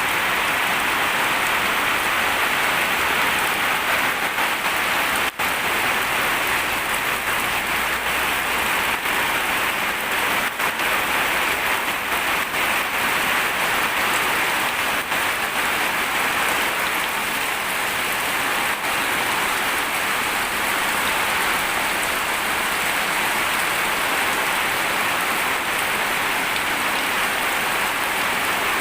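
Steady rain falling, an even hiss that keeps on without a break in level apart from a momentary dip about five seconds in.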